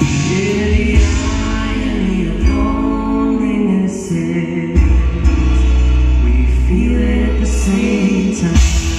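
Live band performing a pop ballad, with long sung vocal notes over piano, acoustic guitar, cello, bass guitar and drums.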